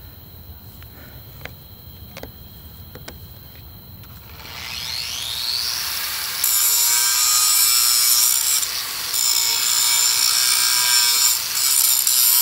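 A few faint clicks, then an angle grinder spins up about four seconds in with a rising whine. A couple of seconds later the disc bites into the steel of a railroad rail: a loud, steady grinding noise with two brief dips where the disc eases off the metal.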